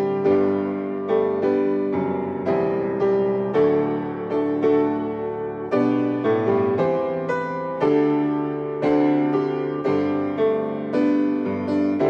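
Solo grand piano playing a steady flow of chords and melody notes, each struck and left to ring and die away.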